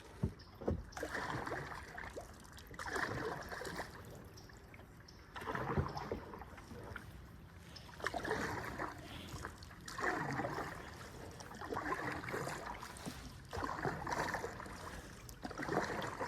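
Paddle strokes in the water from a canoe or kayak, a swish about every two seconds in a steady rhythm.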